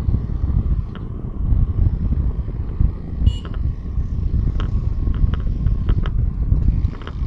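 Traffic and road noise from a moving vehicle with wind buffeting the microphone, a steady low rumble. A short high-pitched beep sounds a little over three seconds in, and a few sharp clicks come near the end.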